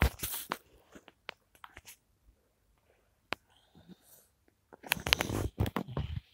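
Toy pieces handled: a few sharp clicks and knocks at the start, then a cluster of knocks and rustling about five seconds in.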